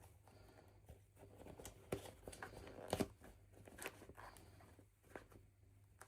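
Faint handling of toy packaging: a few light clicks and rustles, the sharpest about three seconds in, over a steady low hum.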